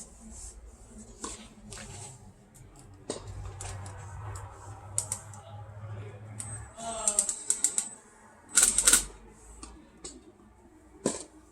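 Tennis balls struck during a rally: sharp hits at irregular intervals, the loudest cluster about nine seconds in.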